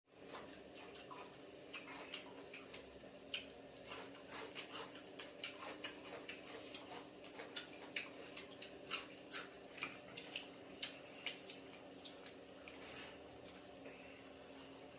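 Eating sounds: a quick, irregular run of small clicks and smacks, several a second, thinning out after about eleven seconds, over a faint steady hum.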